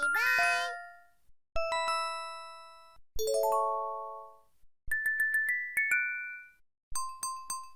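Short synthesized chime sound effects from a KTF X9000 EVER phone's Yamaha MA-5 64-voice sound chip, five in a row with brief gaps. The first opens with a rising swoop, later ones are single chords, a falling run and a rising run of notes, and the last is a few quick tinkles.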